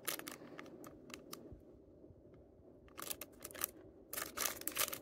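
Clear plastic packaging of a carded ring set crinkling and clicking as it is handled. There are scattered light clicks in the first second and a quiet stretch, then two bursts of crinkling about three and four seconds in.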